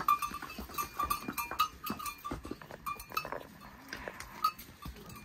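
Small animal bells clanking irregularly as a string of loaded pack animals walks past, with hooves knocking on the stony path.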